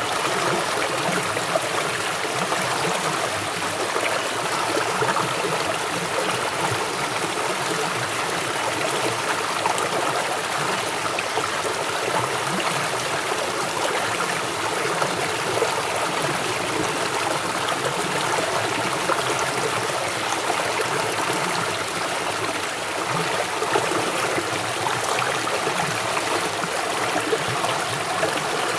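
River water flowing fast over rocks: a steady rushing and gurgling.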